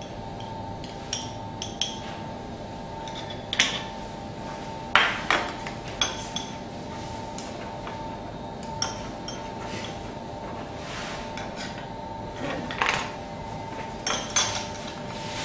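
Serving utensils clinking and tapping against a plate in scattered single knocks, a few seconds apart, over a steady background hum.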